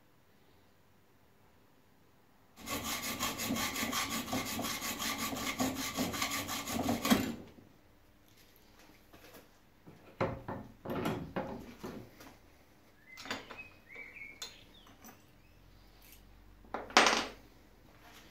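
A silver steel rod clamped in a bench vice is worked with rapid back-and-forth rasping strokes of a hand tool for about four and a half seconds. Scattered metallic clicks and knocks follow as the vice and workpiece are handled, with one sharp knock near the end.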